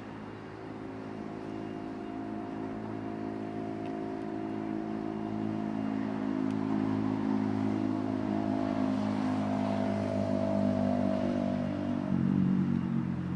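An engine running at a low, steady speed, growing gradually louder, its note shifting near the end.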